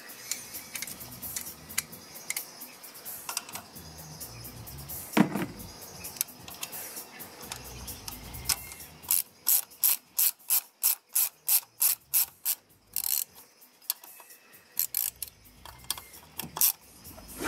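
Socket ratchet turning the water pump pulley bolts, its pawl clicking in a quick run of strokes midway through, about three or four clicks a second. Scattered small clicks of tool on metal come before it, with a single sharper knock about five seconds in.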